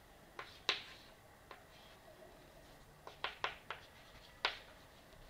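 Chalk tapping and knocking against a blackboard during writing: a few sharp, separate taps, two under a second in, a quick run of three around three seconds in, and one more near the end.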